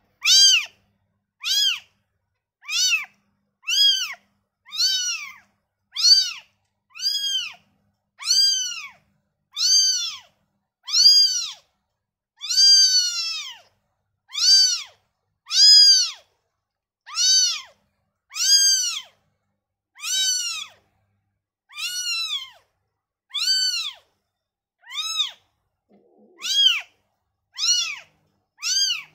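A newborn kitten mewing over and over, about one high-pitched call a second, each rising and then falling in pitch. These are the cries of a kitten just taken from its mother.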